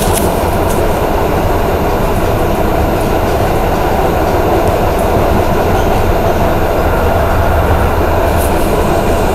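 Thüringerwaldbahn tram running along its line, heard from inside the car: a loud, steady rumble of wheels on rails and running gear, with a few faint clicks.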